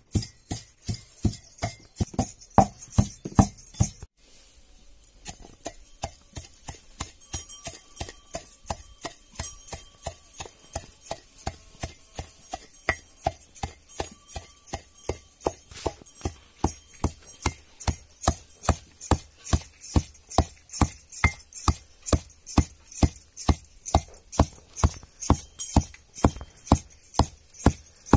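A wooden pestle pounding dry spices in a steel pot, about two to three strokes a second, with glass bangles jingling on each stroke. The pounding breaks off briefly about four seconds in, then resumes at the same pace.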